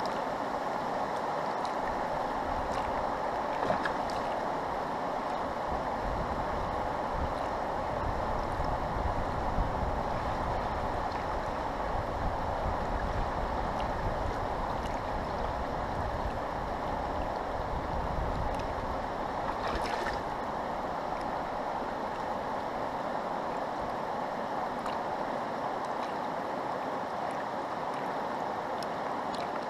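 Steady rush of fast-flowing river water, with a low gusty rumble through the middle.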